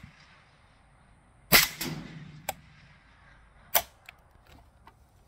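Suppressed PTR 91 .308 rifle firing a shot about a second and a half in, with a short ringing tail and a second clack from the action right after. A single click follows, then another sharp crack near the end with a few light metallic clicks.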